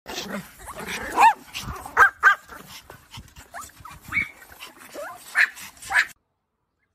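Pomeranians yapping: a string of short, high-pitched barks, loudest about a second in, twice around two seconds, and twice near the end. The sound cuts off suddenly just after six seconds.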